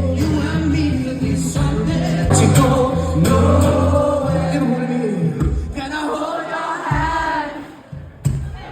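Live acoustic performance: a male voice singing over acoustic guitar, with the audience singing along. The music thins out about two-thirds of the way through and drops briefly near the end.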